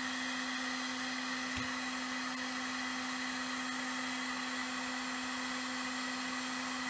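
Handheld heat gun running steadily, a constant motor hum under the rush of hot air blowing onto a joint being heated for soldering.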